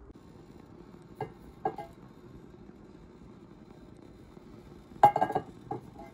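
Kitchenware clinking as a cooking pan and a glass olive-oil bottle are handled: two light clinks a little over a second in, then a louder cluster of clinks and knocks around five seconds in.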